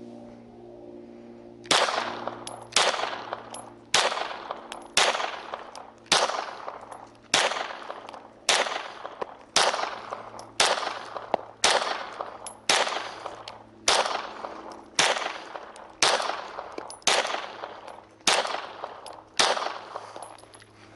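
Walther Creed 9mm pistol fired seventeen times at a steady pace of about one shot a second. Each shot trails off before the next.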